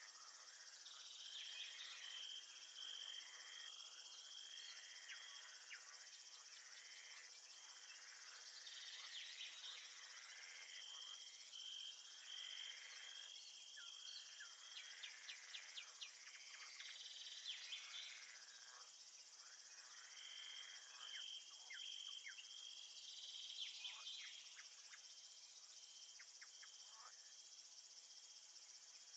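Crickets chirping: a high pulsed trill that comes in runs of a few seconds over a steady high insect hiss, with scattered short chirps. Faint throughout.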